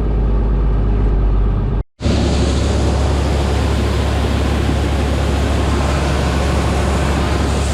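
Farm machinery engine running steadily. About two seconds in there is an abrupt cut, after which a different steady, noisier machine run continues with a strong low hum.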